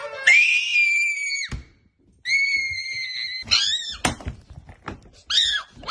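High-pitched screaming: two long, steady shrieks, then several short squeals that rise and fall. A thunk comes about a second and a half in.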